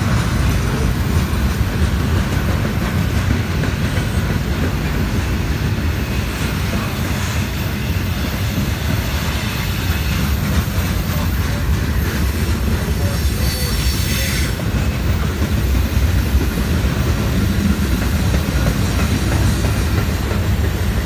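Freight cars of a long train rolling past close by on steel rails, boxcars and then centerbeam flatcars loaded with lumber, making a steady low rumble that doesn't let up.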